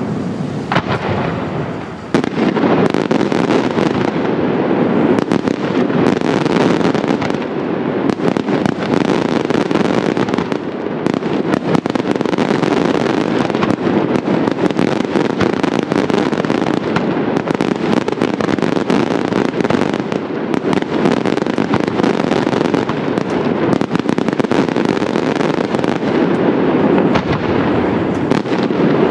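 Daytime fireworks barrage: a continuous, dense run of rapid bangs and crackling from aerial shells and salutes, with no gaps. It thins briefly about two seconds in, then stays packed.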